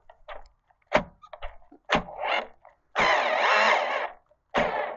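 Worn-out Black & Decker drill spinning a socket on a rusty truck bolt: a few short trigger pulls, then a longer run of about a second about three seconds in, and another short burst near the end. The drill is about worn out and is overheating to the point of smoking.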